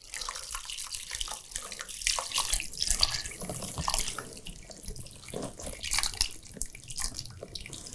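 Hot chicken stock poured in a steady stream from a large stockpot through a fine-mesh strainer into a bowl, splashing continuously.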